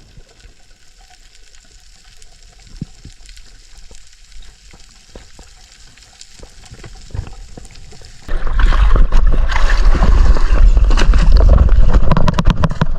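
Moving water: faint scattered clicks and crackle, then about eight seconds in a sudden loud rush of water with a deep rumble.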